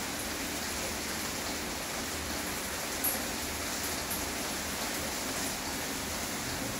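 180-degree curved plastic modular belt conveyor running, a steady even noise with one brief tick about three seconds in.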